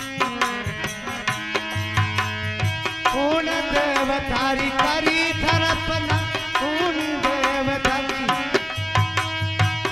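Devotional folk music: a harmonium holds steady notes while small brass hand cymbals tick a fast, even beat over a hand drum's low strokes. From about three seconds in, a wavering singing line glides over the accompaniment.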